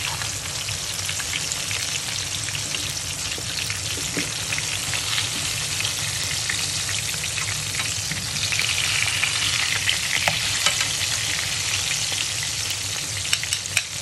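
Flour-dredged fish pieces sizzling and crackling in hot oil in a stainless steel frying pan, the sizzle growing louder for a few seconds past the middle. Metal tongs click against the pan a few times as the pieces are turned over.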